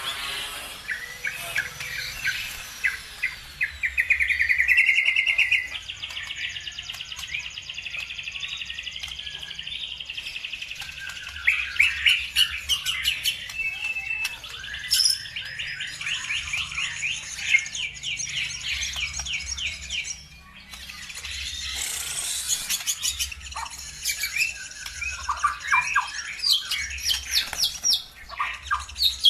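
Songbirds singing, in fast high trills and chirping calls, several voices overlapping; it is a bird-song lure recording of the kind played to provoke caged birds into singing.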